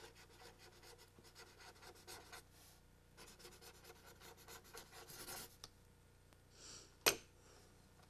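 Pen scratching across paper in quick short strokes as words and a signature are written by hand, then a single sharp click about seven seconds in as the pen is put down on the paper.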